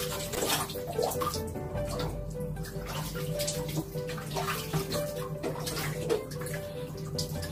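Water splashing and trickling as a baby's head is washed with a wet cloth over a baby bathtub, with soft background music underneath.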